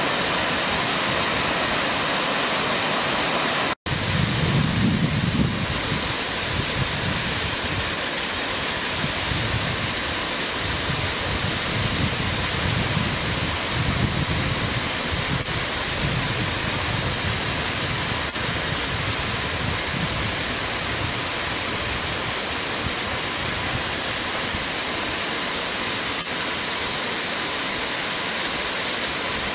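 Waterfall cascading over stepped rock ledges: a steady rush of falling water, with a momentary gap about four seconds in.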